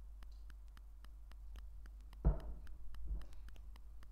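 Small plastic Lego pieces being handled, with light irregular clicks and a louder rustle a little over two seconds in.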